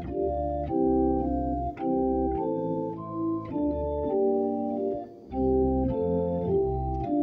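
Organ playing a hymn on a traditional Scottish melody in held four-part chords over a low bass line. The chords change about once or twice a second, with a short break between phrases about five seconds in.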